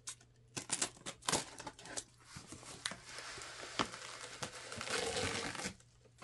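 Bubble wrap crinkling and rustling around a boxed item as it is slid out of a cardboard shipping box. A few sharp taps and scrapes come in the first two seconds, and the rustling is heaviest from about two to six seconds in.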